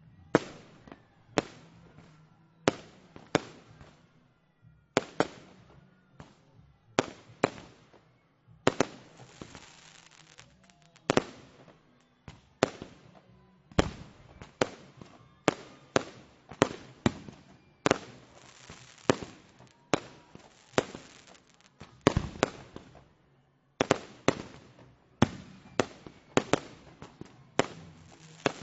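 Fireworks going off in a constant barrage: sharp bangs about once or twice a second, each with a short echoing tail, and stretches of dense crackling a little after the first quarter and again near the middle.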